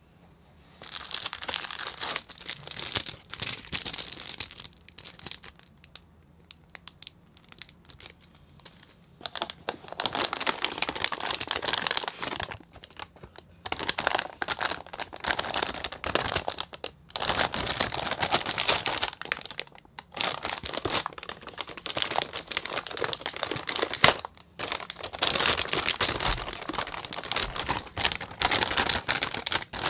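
Anti-static plastic bag crinkling and rustling in irregular bursts as the graphics card inside it is handled and unwrapped, with a quieter pause of a few seconds early on.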